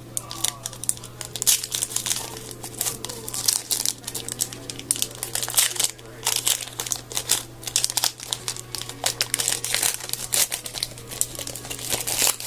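Hockey card pack wrappers crinkling, with rapid irregular crackles throughout as packs are handled and torn open.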